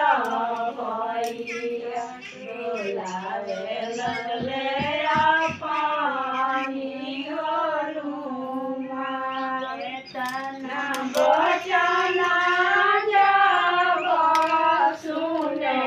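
A group of women singing mangal geet, traditional Hindi wedding songs, together as one continuous song with no pauses.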